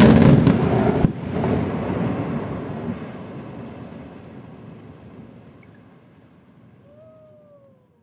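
Dynamite blast on a rocky mountainside: a loud rumbling explosion with a second sharp crack about a second in, dying away slowly over about seven seconds.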